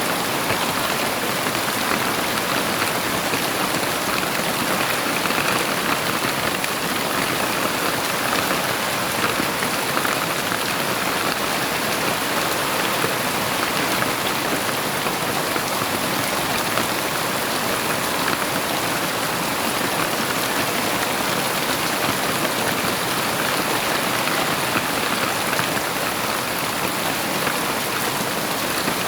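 Heavy rain falling steadily: a dense, even hiss of drops on surfaces with no thunder.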